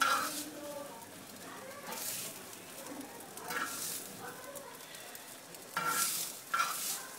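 Metal spoon scraping reheated rice off a hot tawa griddle and onto a plate, in several short scrapes a second or two apart.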